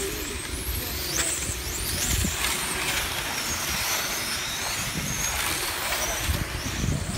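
Electric motors of 1/8-scale on-road RC racing cars whining as the cars accelerate and pass, several high-pitched tones sliding up and down over one another.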